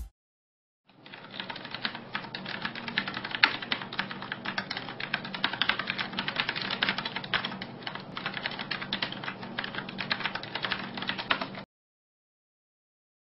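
Typing sound effect: a fast, continuous run of keystroke clicks that starts about a second in and cuts off suddenly well before the end.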